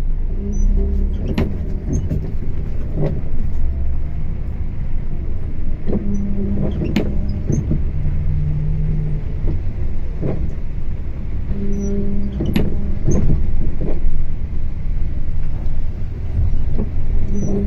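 Coach bus driving on a rain-soaked highway, heard from the driver's cab: a steady low engine and tyre rumble with the hiss of the wet road, broken by short low hums and sharp clicks every few seconds.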